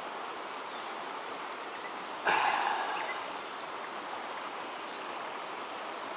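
Steady rush of water and wind at a river dam, with a sudden splash about two seconds in that fades within about half a second, as a hooked asp thrashes at the surface. A faint high-pitched whine follows about a second later.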